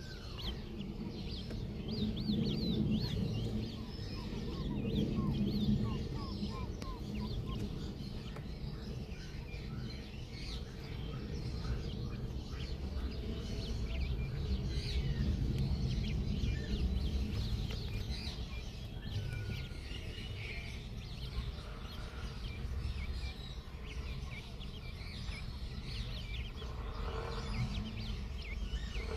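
Chickens in a basket chirping and peeping, many short high calls overlapping, with a run of quicker falling notes about five seconds in and some clucking.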